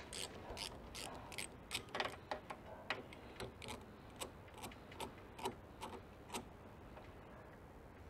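Socket ratchet clicking in short strokes, about two to three clicks a second, as an 8 mm bolt is backed out of a car door. The clicking stops about six seconds in.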